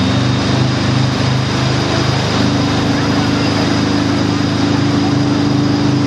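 Tow boat's engine running steadily at speed, with rushing wake water and wind noise; its pitch rises slightly about two seconds in.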